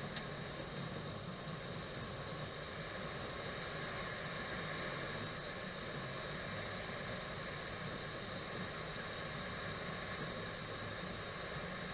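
Steady flight-deck noise of a Boeing 737 taxiing: an even hiss and low rumble with a few high, steady tones held throughout.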